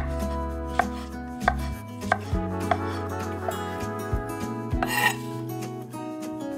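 Chef's knife slicing button mushrooms on a wooden end-grain cutting board, the blade knocking on the board roughly every two-thirds of a second. A brief rasp comes about five seconds in.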